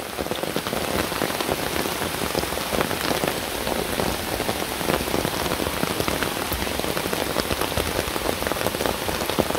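Rain falling steadily, a dense patter of many small drops.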